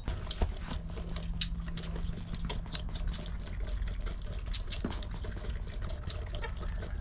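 Bottle-fed goat kids sucking milk from bottles: a run of wet, irregular sucking and smacking clicks.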